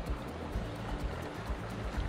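Background music over the steady rush of a flood-swollen, fast-flowing river.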